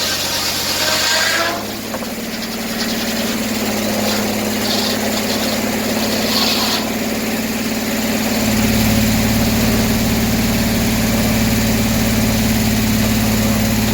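Gas-engine circular sawmill with a 48-inch inserted-tooth blade running steadily. A high whine stops abruptly about a second and a half in, and the engine note deepens a little past the middle.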